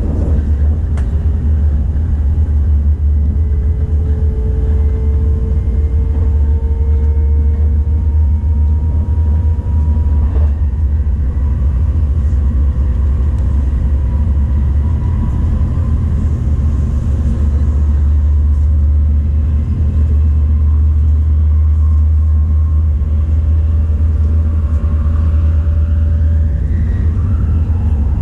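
Tokaido Shinkansen train running at speed, heard from inside the passenger cabin: a steady low rumble, with a faint whine that rises slowly in pitch.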